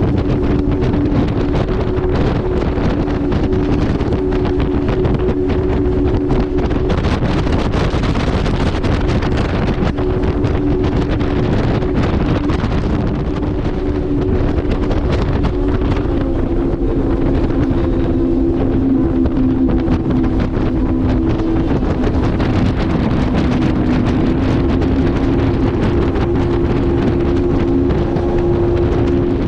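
Boat engine running steadily at cruising speed, a constant low drone whose pitch dips slightly about halfway through, with wind buffeting the microphone.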